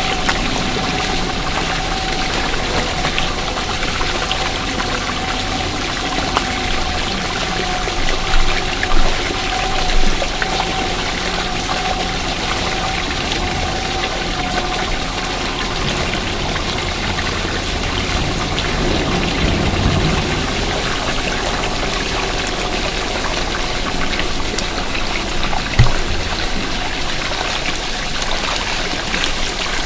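Steady rush of water pouring into a pool, with a steady hum under it for the first half. A few short, louder knocks come about a third of the way in and once near the end.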